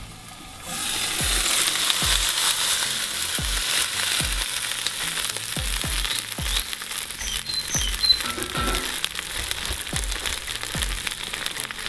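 Chicken drumsticks and potatoes sizzling and crackling in a cast-iron kazan. The sizzle comes up under a second in, with many sharp pops through it.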